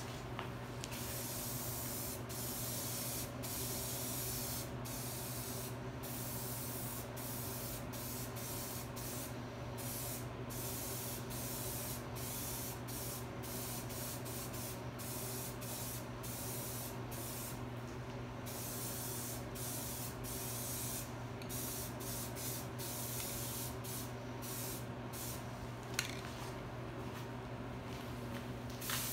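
Aerosol spray-paint can hissing in repeated bursts of varying length, with brief pauses between passes, over a steady low hum.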